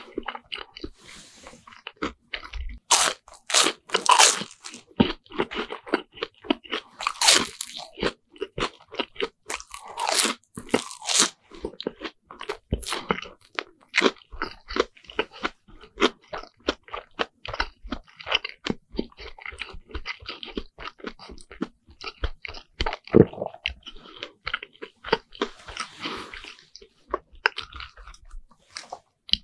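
Close-miked chewing of a deep-fried bread sandwich (Lunch Pack): the crisp fried crust crunches between the teeth amid steady wet mouth clicks, with several louder crunches scattered through.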